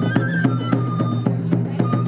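Shishimai lion-dance festival music: a bamboo flute playing a stepping melody of held notes over a steady beat of drum strokes, about four a second.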